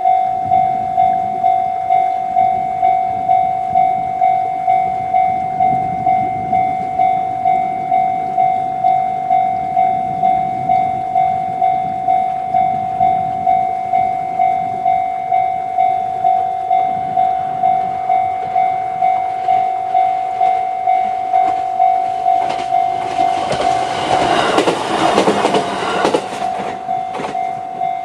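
Japanese level crossing alarm sounding the JR East Tohoku-type electronic tone, a steady ding pulsing about three times every two seconds. About twenty-two seconds in, a JR East E129 series electric train runs over the crossing, its wheels clacking over the rail joints, loudest a little after that, then fading while the alarm keeps ringing.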